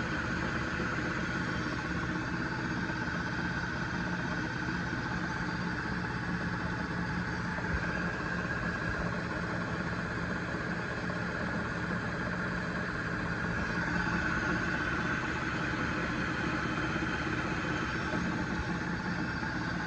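Lathe headstock turning slowly, set for about 48 RPM, belt-driving a milling machine power head, with its motor and phase converter humming under it: a steady, even machine hum, running nice and smooth.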